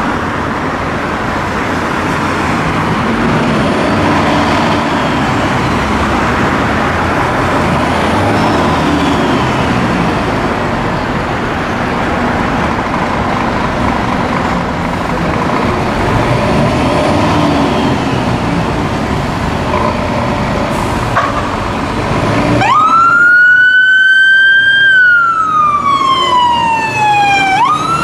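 Steady rumble of engines and road traffic for most of the stretch; near the end the turntable ladder's siren starts, sweeping up, falling slowly in a long wail and rising again.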